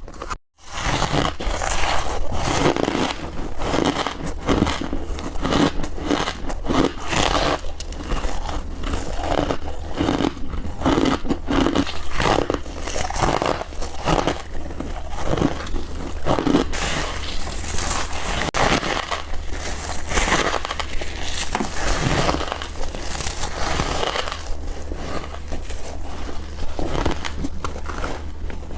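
Close-miked chewing of soft, powdery ice: a continuous run of crunching and crushing bites, one after another.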